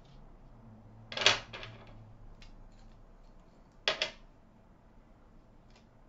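Paper embellishments being handled and pressed down onto a scrapbook layout: a short paper rustle about a second in, then two quick taps just before four seconds in, with a few faint clicks between.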